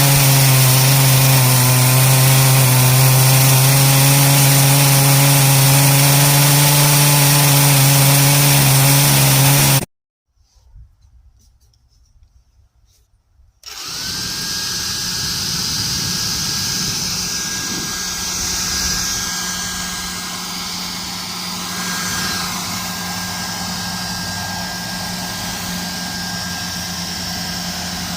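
Large two-stroke chainsaw on a Granberg chainsaw mill running steadily at high revs, ripping a log lengthwise; it cuts off abruptly about ten seconds in. After a few seconds of near silence, a quieter steady engine-like running with a thin high whine carries on.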